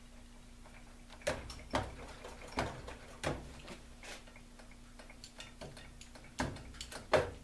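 A string of sharp clicks and cracks, about eight at irregular intervals with the loudest near the end, as large filter capacitors are worked back and forth and snapped off their mounts in the chassis of a Kenwood TS-940 transceiver's power supply.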